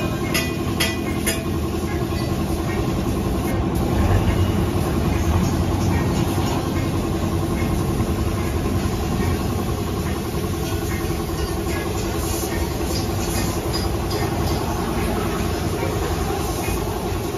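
Air compressor running steadily with a constant hum, under the hiss of compressed air from a paint spray gun in use.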